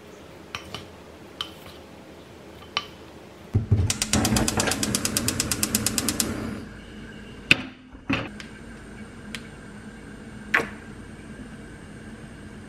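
A few light taps of a wooden spoon against a glass bowl, then a gas range's spark igniter clicking rapidly for about three seconds until the burner lights. A steady low background noise follows, broken by a few sharp knocks.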